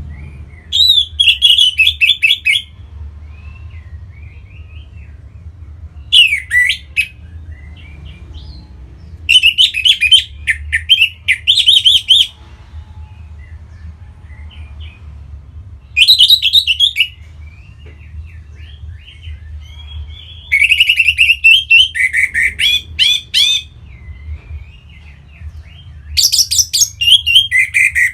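Orange-headed thrush singing: six bursts of rapid, varied warbling phrases a few seconds apart, with a low steady hum underneath.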